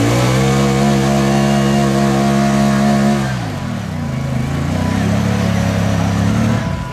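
Side-by-side UTV engine revving hard while the machine is bogged down in deep mud: it climbs to high revs and holds there, drops to a lower steady speed a little after three seconds in, and eases off again near the end.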